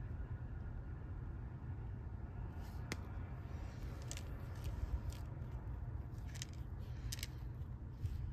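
Small light clicks and taps of tiny 3D-printed resin model parts and fingertips on a tabletop as the parts are set down and picked up, scattered from about three seconds in, over a low steady rumble.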